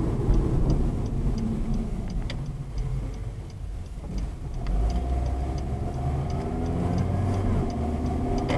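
Car cabin sound picked up by a dash camera's microphone while driving: engine and road rumble, with a light, even ticking about three times a second. About halfway through the engine note rises, and the sound cuts off suddenly at the end.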